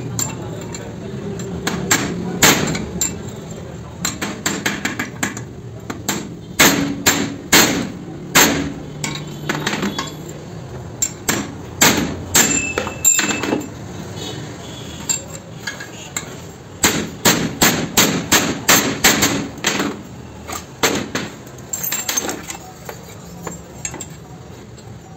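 Hammer blows on a Hyundai Santro's wheel hub assembly during a wheel bearing replacement: sharp metal-on-metal strikes in quick runs with short pauses, one run briefly ringing. The blows thin out near the end.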